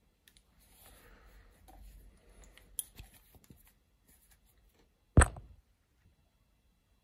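Handling of a small metal rotary table: faint rubbing and a light click, then one sharp, loud knock a little after five seconds in that rings briefly.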